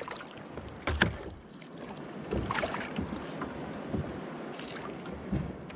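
Knocks and splashes at the side of a fishing kayak as a fish is landed, the loudest knock about a second in, over wind on the microphone and water against the hull.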